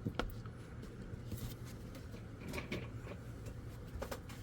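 Quiet room with a steady low hum and a few faint, short clicks and knocks scattered through it.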